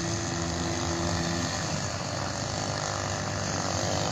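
Small brush-cutter engine of a radio-controlled model boat running at speed on the water, a steady buzzing drone.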